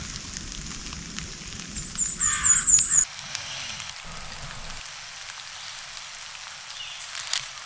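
Birds calling in woodland: a loud, harsh call with a fast, wavering high trill over it, lasting about a second, some two seconds in, then a faint steady hiss.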